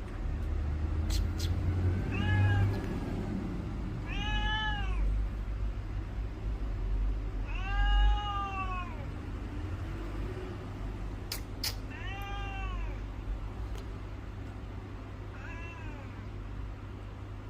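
A cat meowing five times, a few seconds apart, each call rising and then falling in pitch; the third, about eight seconds in, is the longest and loudest. A low rumble runs underneath.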